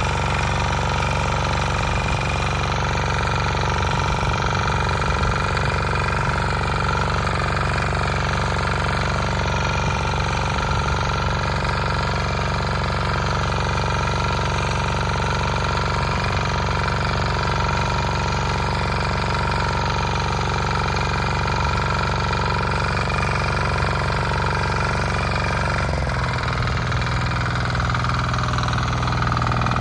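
Bolat Atom motor hoe engine running steadily without a break; a few seconds before the end its note changes and settles onto a lower, stronger hum.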